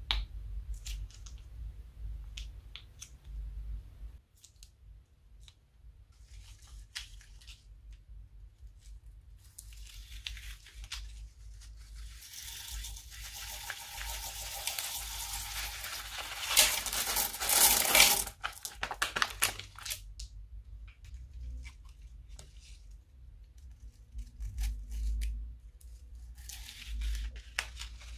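Small plastic beads and microbeads pouring out of a plastic piping bag onto slime in a ceramic bowl: a dense, continuous rattle that builds and is loudest a little past the middle. Before and after it come scattered clicks and crinkles from the plastic bags, and near the end scissors snip into a bead-filled piping bag.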